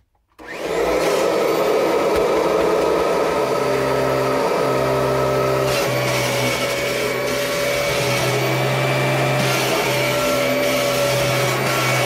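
A Kirby G4 upright vacuum cleaner switches on about half a second in, its motor spinning up almost at once. It then runs steadily at full speed while being pushed over carpet.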